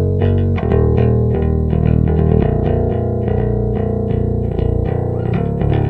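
Five-string electric bass, tuned down a half step, played with the fingers in driving eighth notes over G, E minor and B minor, along with a hard rock band recording with distorted guitars.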